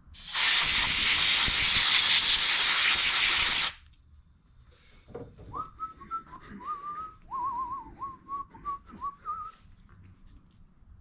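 A loud, steady hiss lasting about three and a half seconds while a lawn mower carburetor is cleaned out. A couple of seconds later someone whistles a few soft, wavering notes.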